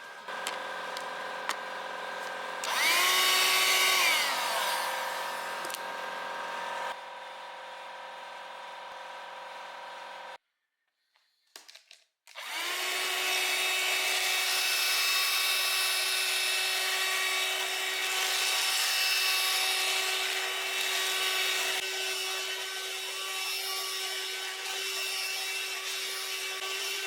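Parkside PHSSA 20-Li C1 20 V cordless hand-held vacuum cleaner motor running with a steady whine. About three seconds in it speeds up to a higher, louder pitch for about a second and drops back, then runs quieter. It cuts out briefly and starts again, the whine rising to speed and running on with a loud rush of air.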